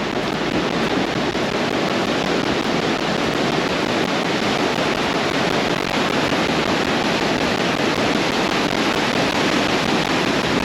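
Surf breaking on a sandy beach: a steady, even wash of noise.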